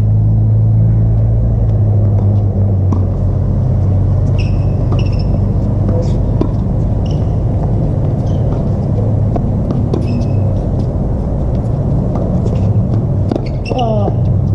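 Tennis rally on a hard court: sneakers squeak in short high chirps every second or two and the ball is struck a few times, a cluster of squeaks near the end as the near player swings. Underneath, a loud steady low hum.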